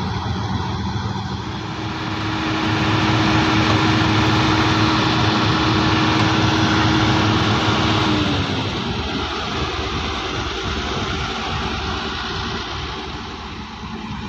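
Heavy diesel engine running hard: a steady tone swells and holds for several seconds, then drops in pitch and eases off about two thirds of the way through, leaving the engine running lower.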